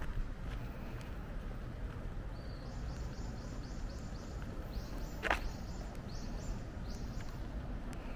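Steady low rumble of distant traffic with a small bird calling in quick runs of short, rising high chirps. A brief sharp swish cuts through about five seconds in.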